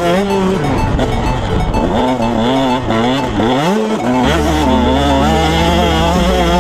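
Motocross bike engine revving hard as it is ridden, its pitch climbing and dropping again and again through the gears, with a long rising rev around the middle. Music plays underneath, with a steady bass note from about two-thirds of the way in.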